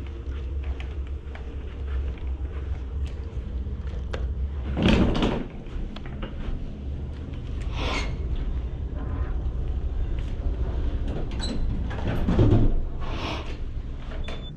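Suitcase wheels rumbling steadily over carpet, then several knocks and bumps, loudest about five seconds in and near the end, as the suitcase is taken into an elevator.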